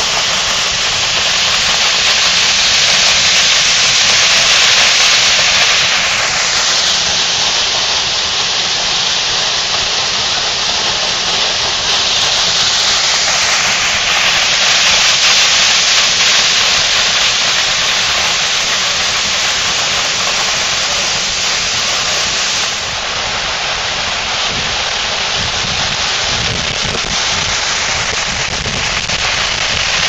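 Mountain waterfall pouring from a rock cleft and splashing onto the rocks below: a loud, steady rushing of water that eases off slightly about three-quarters of the way through.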